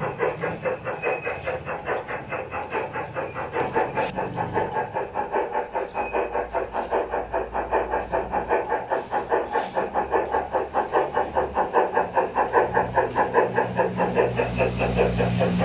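Sound decoder of an LGB G-scale model of a narrow-gauge steam locomotive playing quick, even steam-exhaust chuffs, about five or six a second, through the model's loudspeaker as it runs, over a low steady rumble of the running train. The chuffing grows louder toward the end.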